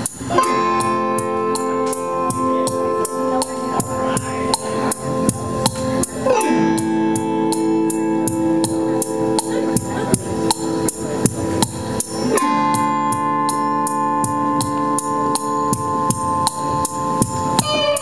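Live band playing a slow passage: sustained keyboard and electric guitar chords that change about every six seconds over a steady percussive beat.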